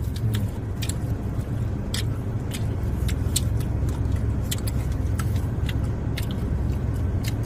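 Eating sounds inside a car: frequent short clicks and crunches of plastic spoons on plastic cups and chewing, over a steady low hum of the car in the cabin.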